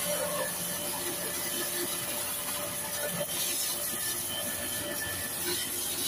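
Pressure washer running, with a steady hiss of water spray.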